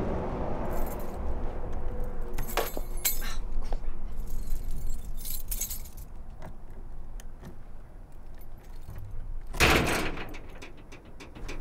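Light metallic jangling and clicking in scattered short bursts, with a louder rush of noise about ten seconds in, followed by a quick run of clicks.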